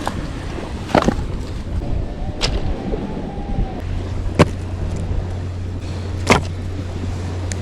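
Wood being split into kindling on the beach: a sharp knock about every two seconds, four in all, over a steady low rumble.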